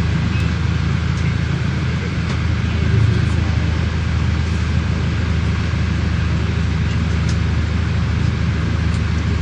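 Steady low engine hum and road noise heard from inside the cabin of a moving vehicle.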